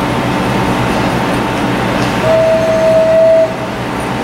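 A vintage wooden BMT BU gate car rolls along the track with a steady rumble. About two seconds in, a train horn sounds one long steady note.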